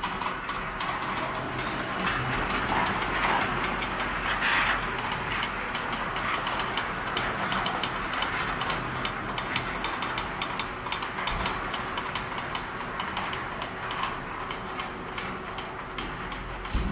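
3-metre-wide automatic fabric spreading machine running, its carriage travelling along the table: a steady mechanical whir and hum with a rapid, regular clicking throughout.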